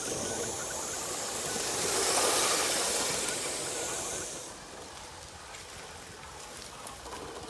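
Steam hissing from a 1977 Aster PLM 231A alcohol-fired Gauge 1 live-steam model locomotive, swelling about two seconds in. It cuts off abruptly after about four and a half seconds, leaving a quieter background with faint ticks.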